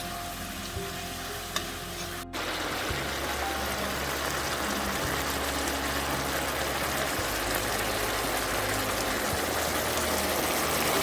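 Food sizzling as it fries in a pan, a steady dense hiss that jumps louder after a cut about two seconds in.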